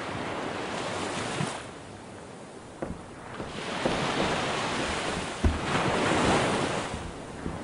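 Rushing surf: waves washing in and drawing back in swells, loud at first, easing off, then building again. A few faint knocks sit in the wash.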